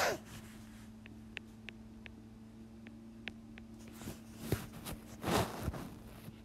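Stylus tip tapping on a tablet's glass screen while handwriting, a handful of light, short ticks over a faint steady hum. A few louder soft noises follow about four to five seconds in.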